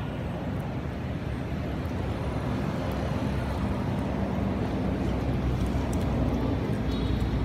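Steady low outdoor rumble that holds at one level, with a faint hum in the middle.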